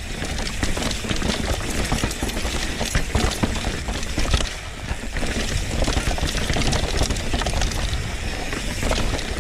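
Mountain bike riding down a dirt trail: a continuous rattle and clatter of tyres, chain and frame over the ground, over a low rumble of wind on the microphone.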